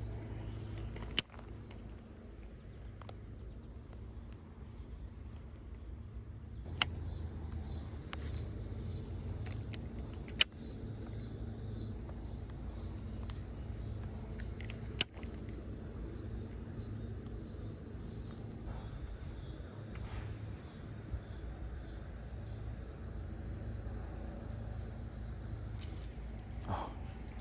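Outdoor ambience: a steady low rumble under a faint, repeating high chirring of insects, broken by four sharp clicks spread through the first half.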